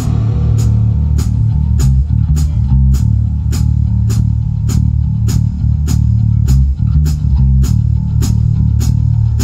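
Live rock band playing instrumentally: electric guitars and bass guitar over a drum kit keeping a steady beat of about two and a half hits a second, with a heavy low end.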